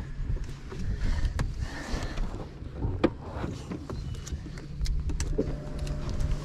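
Electric trolling motor humming steadily, holding the boat in place on spot-lock. Scattered light clicks and knocks come from a crappie being unhooked from a jig.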